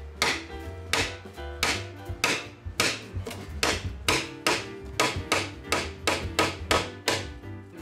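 Hammer striking a wooden hanasen peg in quick, steady blows, about three a second, driving it through the tenon so the joint draws tight at the shoulder. Background music plays underneath.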